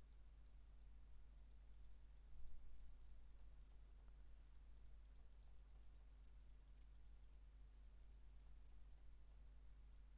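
Near silence: a steady low hum of room tone, with faint, scattered high ticks through the middle.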